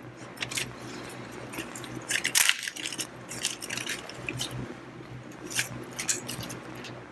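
Irregular clicks and light clinks of small metal gearcase parts being handled and set down, the loudest about two and a half seconds in, over a steady low hum.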